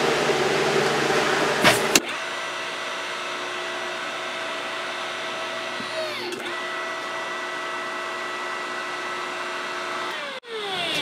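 Electric hydraulic pump of a jewelry press switched on with a click about two seconds in, running with a steady motor hum whose pitch sags briefly about midway as the ram presses the silver. Switched off near the end, it winds down with falling pitch.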